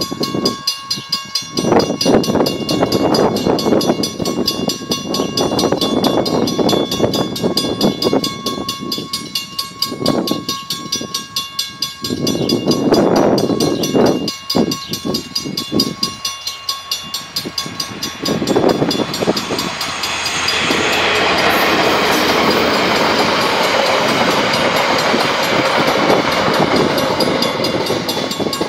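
Mechanical level-crossing bells ringing with steady, even strokes. About twenty seconds in, a passenger train arrives and runs across the crossing, its steady loud noise lasting to the end.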